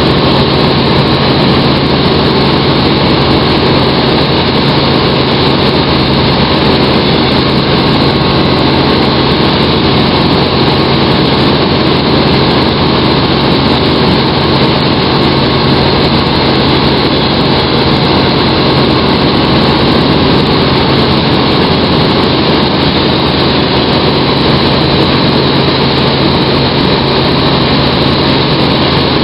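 Helicopter engine and rotors running in level flight, heard from inside the cabin: a loud, unchanging drone with a steady low hum.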